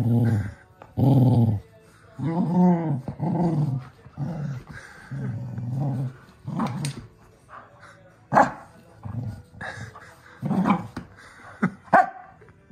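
Red cocker spaniel play-growling in repeated deep bursts, each about half a second to a second long, while tugging at a stuffed toy chicken. In the second half the growls grow shorter and sparser, broken by a few short, sharp noises.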